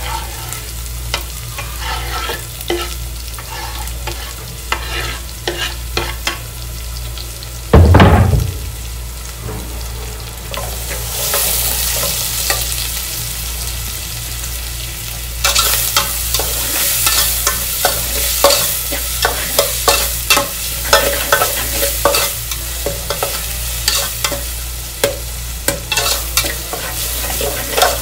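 Chopped onion, green chilli and spring onion sizzling in hot oil in an aluminium pot, with a metal spatula stirring and scraping against the pot's sides and bottom. There is a loud knock about 8 seconds in, and the sizzle grows louder from about 11 seconds.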